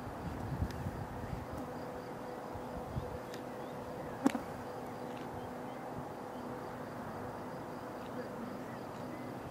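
Distant Boeing 747SP's four jet engines at takeoff power, a steady humming drone as the jumbo begins its takeoff roll. A single sharp click about four seconds in.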